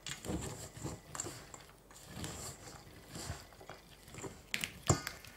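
Spatula working a stiff cake dough full of raisins, pine nuts and candied fruit in a stainless steel bowl: irregular stirring and scraping strokes about once a second, with a few sharp clicks against the bowl near the end.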